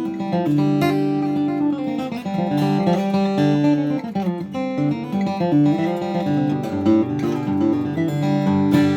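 Boucher SG-152-BMV steel-string acoustic guitar with medium-gauge strings, flatpicked: a flowing run of picked notes mixed with strummed chords that ring on.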